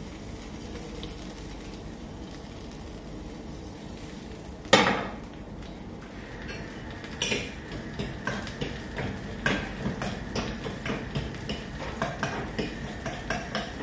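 A steady low hiss, then a frying pan set down on the gas stove's grate with one loud clank about five seconds in. From about seven seconds a spoon clinks against a ceramic bowl about three times a second as egg mixed with chopped vegetables is beaten.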